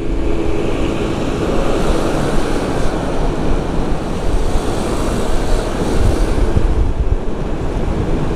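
Steady wind rush buffeting the microphone of a motorbike rider on the move, with the bike's running and road noise beneath.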